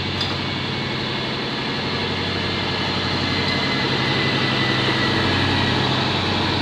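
Diesel engines of a Trenitalia Minuetto diesel multiple unit running with a steady deep hum as the coupled train moves slowly past, growing a little louder.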